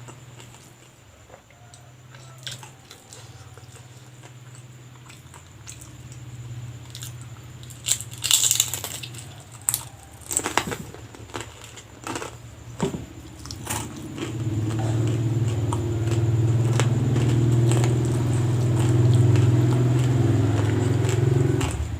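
Close-up crunching and chewing as crisp fried lumpia (spring rolls) are bitten, the wrappers hard, which he puts down to over-frying. About halfway through, a steady low drone starts underneath and becomes the loudest sound.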